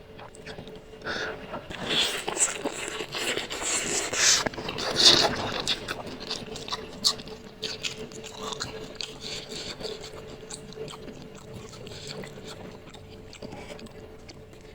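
Close-miked eating of spicy instant noodles: chewing and biting with scraping clicks, loudest in the first half and softer later.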